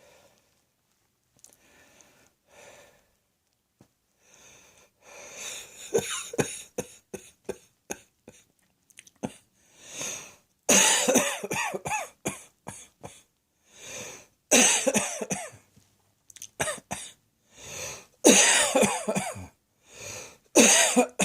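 A person coughing in repeated fits, each a quick run of several hard coughs, with audible breaths drawn in between the fits. The first few seconds are faint, and the coughing starts about five seconds in.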